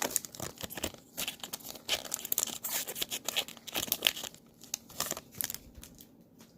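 A trading-card pack's plastic-foil wrapper being torn open and crinkled, with the cards rustling as they are handled: a dense run of sharp crackles that stops shortly before the end.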